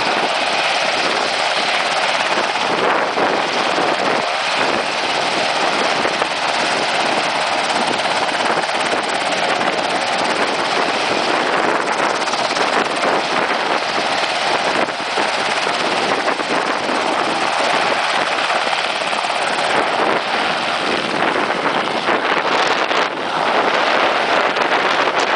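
UH-60 Black Hawk helicopter running on the ground, its turbine engines and main rotor making a loud, steady noise. The noise grows a little louder near the end as it lifts off.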